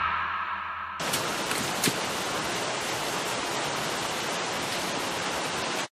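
Heavy rain falling, a steady dense hiss that starts abruptly about a second in as the previous sound dies away, with a brief sharp tick near two seconds in, then cuts off suddenly at the end.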